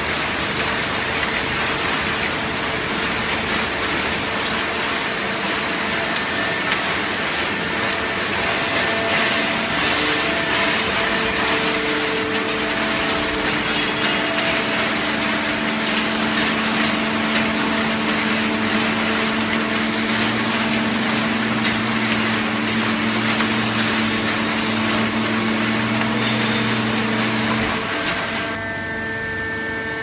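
Automatic open-end horizontal baler and its feed conveyor running: a loud, steady machine din with a hum. A lower, stronger hum joins about halfway through and cuts off about two seconds before the end, leaving a thinner hum.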